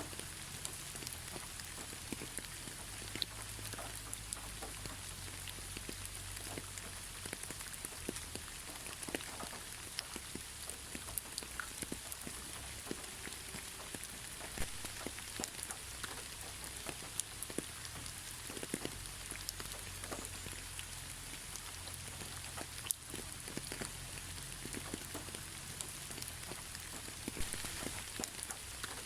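Gentle, steady rain without thunder: a soft even hiss with many individual drops ticking and pattering irregularly on surfaces.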